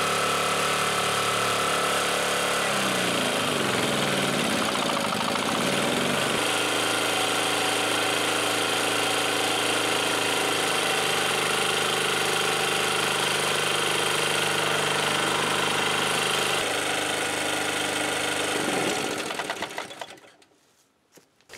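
Small generator engine running on wood gas from a gasifier, under electrical load. About three seconds in its speed wavers for a few seconds as it is throttled up, then it runs steadily; near the end the sound dies away.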